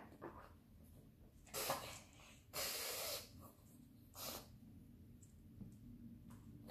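A pug snorting and breathing hard through its short nose as it sniffs at a plastic puzzle feeder. There are three noisy snorts between about one and a half and four and a half seconds in, and the middle one is the longest.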